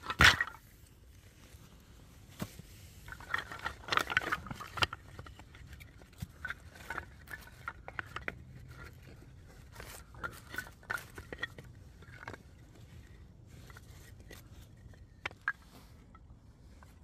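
Split kindling sticks knocking and clattering together as they are set down on dry leaf litter and stood up into a teepee for a fire: irregular light wooden clicks, with one louder knock at the very start.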